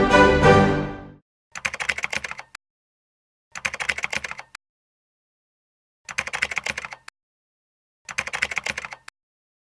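Music fades out about a second in, then four bursts of rapid keyboard typing, each about a second long, with short silences between them.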